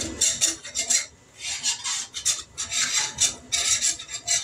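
A utensil scraping and stirring in a skillet in short repeated strokes, about two a second. Flour is being worked into the hamburger grease to make a roux for brown gravy.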